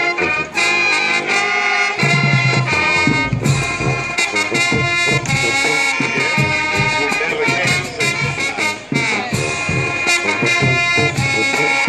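A band playing loud brass-led music, with held chords over a steady stream of drum hits.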